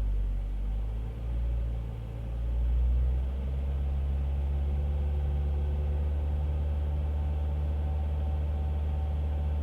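Ford Fiesta ST150's 2.0-litre four-cylinder engine running with a deep, even rumble. It wavers for the first few seconds and then settles to a steady idle. The owner is chasing a strange churning noise that this engine makes.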